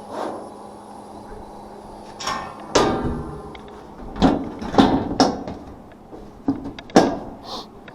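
Sharp metal clanks and knocks, about six over several seconds, as of the evaporative cooler's sheet-metal cabinet being handled. A steady hum stops about two seconds in, just before the knocks begin.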